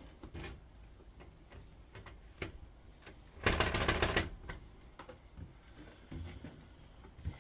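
Scattered clicks and taps of a hand screwdriver working at a stubborn screw in the hob's metal casing, with a short burst of rapid clicking about three and a half seconds in.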